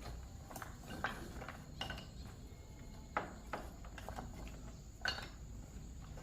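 Scattered light knocks and clinks of objects being handled, a few short strikes spread irregularly over the few seconds, the sharpest about three and five seconds in.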